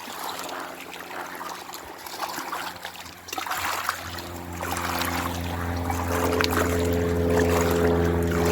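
A motor engine droning at a steady pitch, coming in about three and a half seconds in and growing louder. Small clicks and rustling sit under it.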